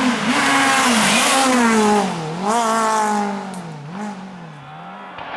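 Rally car engine driven hard past the spectator: revs rise and fall several times with throttle and gear changes, loudest in the first two seconds, then fading as the car moves away.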